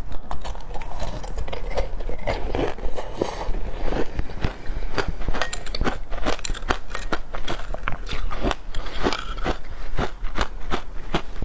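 Close-up crunching and chewing of frozen shaved ice, a dense run of crisp, irregular crunches several times a second.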